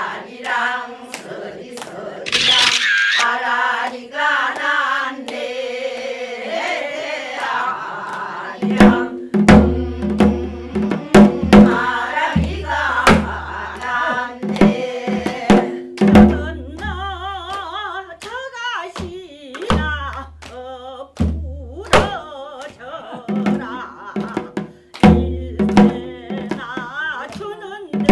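Background music: a melodic opening that is joined about nine seconds in by a bass line and a steady drum beat.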